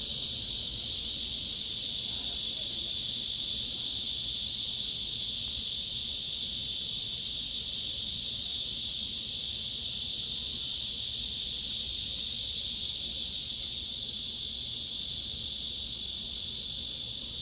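Cicadas shrilling in an unbroken chorus: a steady, high-pitched buzzing hiss that neither pulses nor changes.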